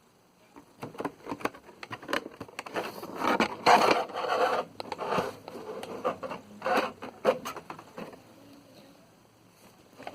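Packaging being handled and opened: a run of scrapes, rubs and small clicks, loudest a few seconds in, dying down near the end.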